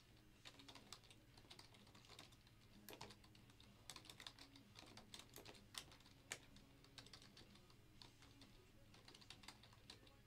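Faint typing on a computer keyboard: irregular key clicks, some in quick runs.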